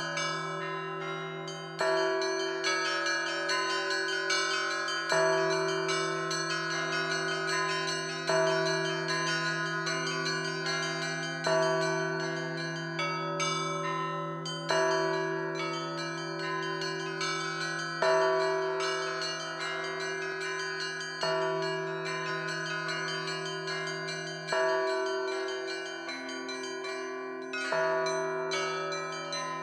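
Russian Orthodox church bells rung as a peal. A large bell is struck about every three seconds and its deep tone hums on between strokes, while smaller bells chime in a quick pattern in between.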